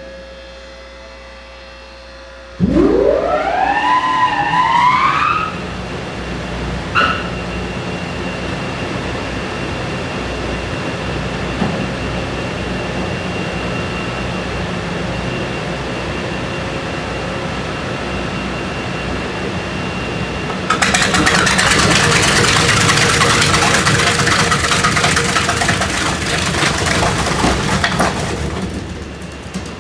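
Weima WL10 V-rotor shredder's 68 hp main drive motor starting: a whine rising in pitch over about three seconds as the rotor spins up, then running steadily with a hum. About twenty seconds in, a louder, rougher noise sets in for several seconds and then eases off.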